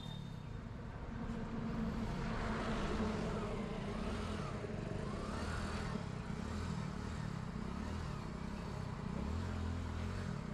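A two-wheeler riding along a city road: steady engine and road noise, with passing traffic.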